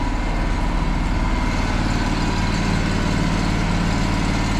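Engine of an engine-driven stick welder running steadily, loud and even.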